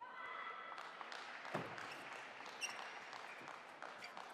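Table tennis rally: the celluloid-type ball clicks sharply off the bats and the table, a few hits about a second apart, over a steady hiss of hall ambience.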